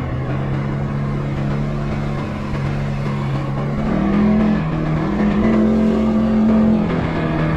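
CFMOTO ATV engine running under way, its revs climbing about four seconds in and again near the end.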